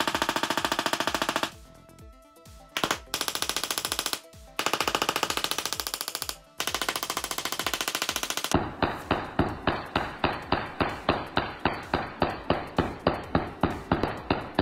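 Handheld Tesla coil spark gun firing. It gives buzzing bursts of very rapid sparks, each a second or two long with short pauses between. From about two-thirds in it switches to a slower, even run of separate sharp snaps, about two a second.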